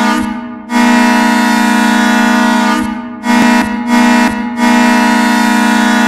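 Hockey goal horn, a low air horn, blowing in blasts: a long blast, two short toots a little past halfway, then another long blast.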